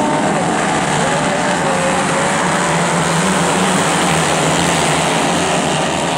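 A pack of 110 cc race motorcycles accelerating away from the start of a dirt-track race. The many small engines blend into one dense, loud engine noise with a wavering whine on top.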